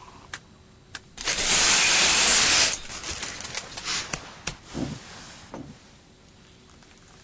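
A loud burst of hissing noise lasting about a second and a half, followed by several softer knocks and rustles.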